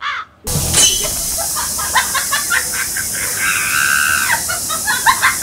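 Steady background hiss starting suddenly about half a second in, with scattered light clicks and knocks and a brief held tone about halfway through.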